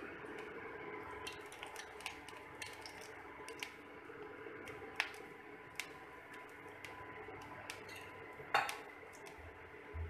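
Cooking oil heating on a tawa, giving irregular small crackles and pops, the loudest about five seconds in and late on, over the steady hum of the induction cooktop.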